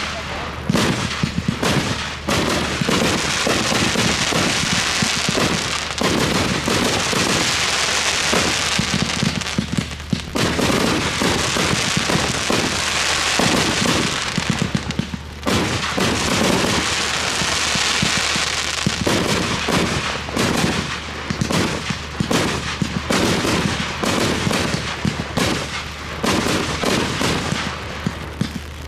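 Fireworks display firing a rapid, near-continuous run of bangs. Several stretches of dense high hiss swell up and die away over a few seconds each.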